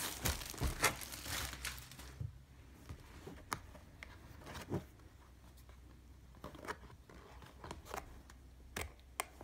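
Clear plastic shrink wrap crinkling and tearing as it is pulled off a cardboard box, densest in the first two seconds. After that come scattered light ticks and scrapes of fingers handling the cardboard.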